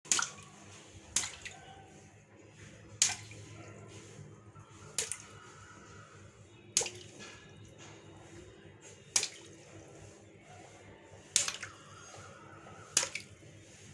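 Water balloons burst one after another with a pin: eight sharp pops at irregular spacing, each followed by a brief splash of water.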